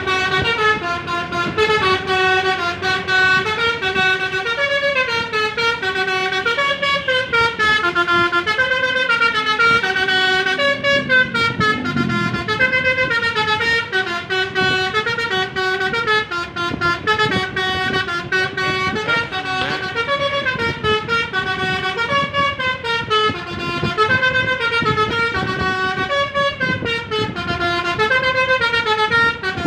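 Telolet basuri musical bus horn playing a tune: a long unbroken run of horn notes stepping up and down in pitch.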